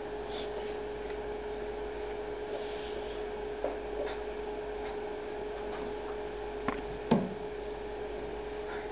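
Classroom room tone with a steady hum, broken by a few faint knocks and rubs. The loudest knock comes about seven seconds in.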